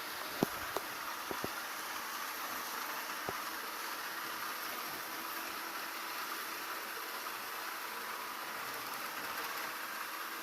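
Ariete Briciola 2711 robot vacuum cleaner running with a steady whirring hiss, broken by a few short sharp clicks in the first few seconds.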